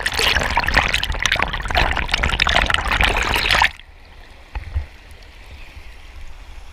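River water splashing and bubbling loudly for nearly four seconds, cutting off suddenly, then the quieter steady rush of the flowing river with a single short thump.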